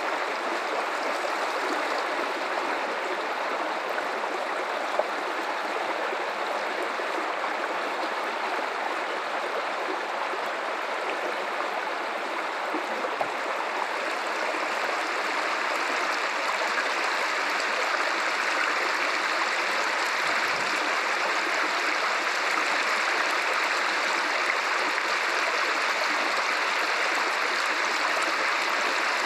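River water running over rocks: a steady rushing and gurgling flow.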